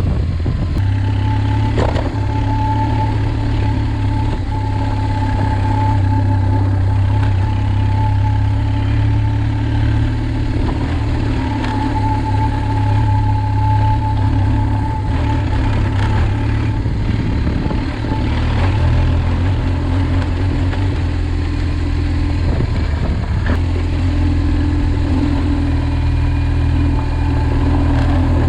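A vehicle engine running steadily under way, a constant low drone that shifts a little in pitch about two-thirds of the way through.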